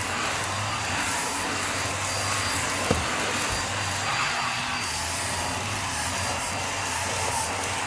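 Hoover React Powered Reach Premier vacuum running steadily with its stair tool brushing across thick stair carpet. There is a single short knock about three seconds in.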